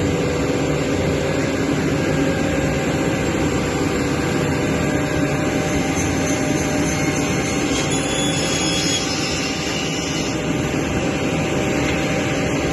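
Törk MP 70 R panel sizing saw running steadily, a continuous even machine noise with a steady hum; a faint higher whine comes in for a few seconds in the middle.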